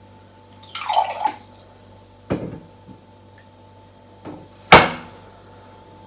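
Water poured briefly from a water filter jug into a glass, then knocks of the jug and glass being set down on the counter, the last one the loudest and sharpest.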